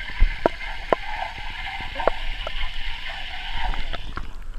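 Underwater sound picked up by a GoPro in its waterproof housing: a muffled rush of water with irregular sharp clicks and knocks.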